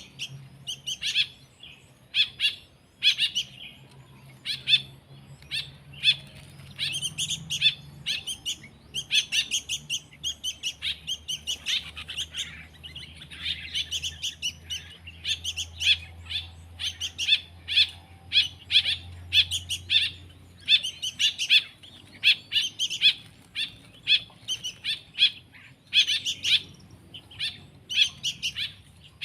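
Young songbird chicks chirping constantly, in quick runs of short, high calls.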